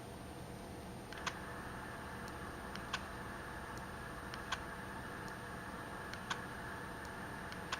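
Panasonic 25mm f/1.4 lens clicking as it locks focus: a small sharp click about every one and a half seconds, with fainter ticks in between. A faint steady hiss comes in about a second in.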